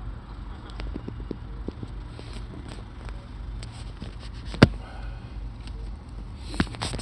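Steady low rumble of a diesel vehicle's engine heard inside the cab, with scattered light clicks and one sharp knock about four and a half seconds in.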